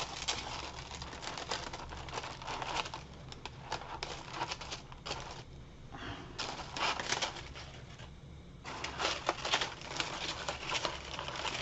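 Crepe paper crinkling and rustling in short crackly spurts as green crepe-paper leaves are pressed and shaped by hand, with brief quieter pauses around the middle.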